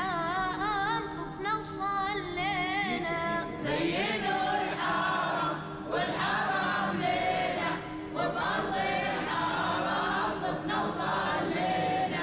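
Background vocal music: a voice singing an ornamented, wavering melody in phrases a few seconds long over a steady held drone, with no clear instruments.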